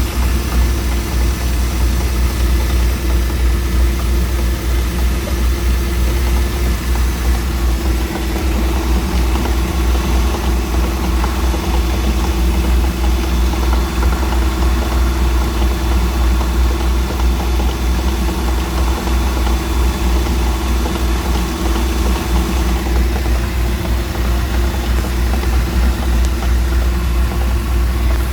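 MerCruiser 4.3-litre V6 marine engine idling steadily, with the knocking noise its owner is trying to show.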